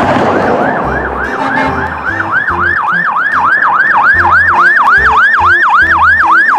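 Fire engine's electronic siren on yelp, a fast rise-and-fall about four times a second. It comes in over the first second or two and then holds loud.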